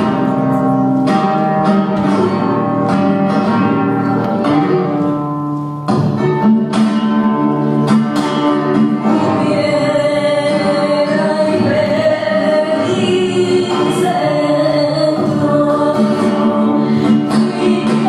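Flamenco music with guitar and a singing voice. Sharp rhythmic accents run through the first half, and a long sung line wavers over the guitar from about halfway.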